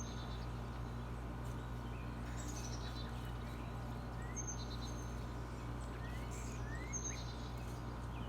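Small birds chirping and calling now and then, short high chirps and quick upward-sliding notes, over a steady low outdoor hum.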